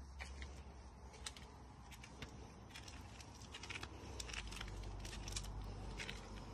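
Faint footsteps on a paved driveway: irregular light scuffs and clicks, over a low steady rumble.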